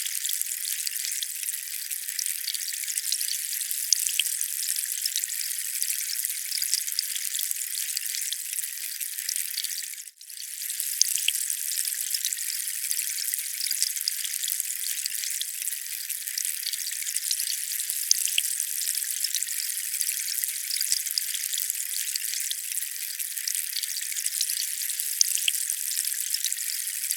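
Steady, thin hiss of water with scattered small drip-like ticks, with no low rumble at all. It drops out for a split second about ten seconds in, then fades straight back.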